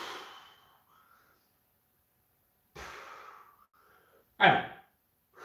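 A man breathing hard through a set of push-ups: four separate breaths, in and out, paced with the reps. The loudest comes about four and a half seconds in, a voiced exhale that falls in pitch.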